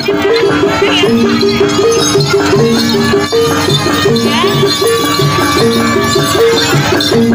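Jaranan (kuda lumping) gamelan music playing: a fast, even pattern of short repeated pitched notes from struck metal-keyed instruments.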